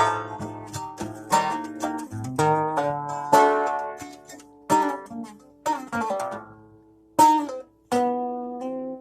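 A plucked string instrument played solo, struck notes and chords ringing out and dying away in slow, unhurried phrases with short pauses between them.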